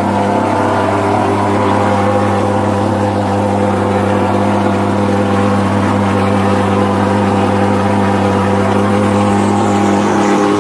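Mosquito fumigation fogging machine running with a loud, steady, even drone.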